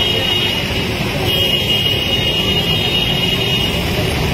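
Busy road traffic with vehicle engines running, and a high steady electronic-sounding tone that sounds twice, the second time for about two and a half seconds.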